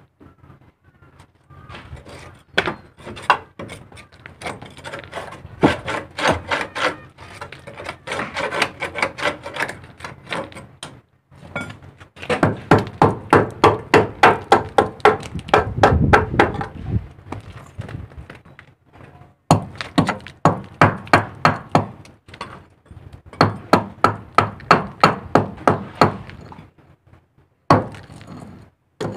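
A hand tool worked hard against a rusty metal fitting in bursts of quick, regular strokes, about three a second, with short pauses between bursts. The longest run lasts about six seconds in the middle.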